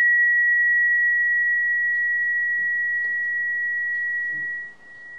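Sonotest (Cosmic Tune), a tuning-fork-like sound instrument, ringing with a single pure high tone after a mallet strike, slowly fading. The tone drops off sharply near the end and lingers faintly.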